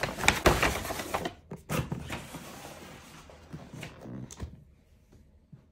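Crinkling and rustling of a courier delivery bag being pulled open, with scattered taps and knocks as a cardboard box is slid out and handled. It is loudest in the first second or so and thins to a few rustles by about four and a half seconds in.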